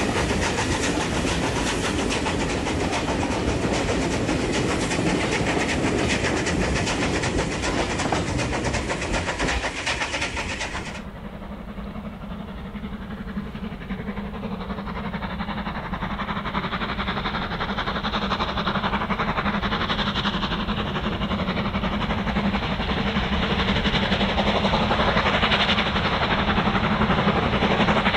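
Steam train on the move, with the running noise of locomotive and carriages on the rails. About eleven seconds in the sound abruptly turns duller and quieter, then builds up again toward the end.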